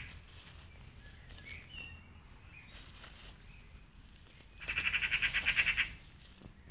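Birdsong: a rapid trill lasting about a second, starting about four and a half seconds in, with a few faint short chirps before it, over a low steady rumble.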